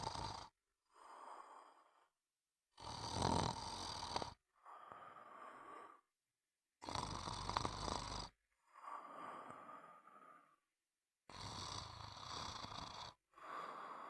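A sleeper snoring in a steady rhythm: a loud snore about every four seconds, each followed by a quieter breath, with short silent gaps in between.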